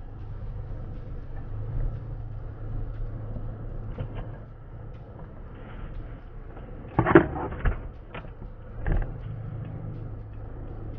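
Steady low hum of a vehicle engine running, with a few sharp knocks about seven seconds in and another about nine seconds in.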